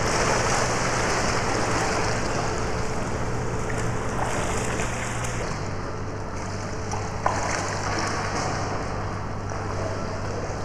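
Water splashing and churning at the surface, with a steady low hum underneath. The sound shifts abruptly about five and a half seconds in, and there is a single small click a little later.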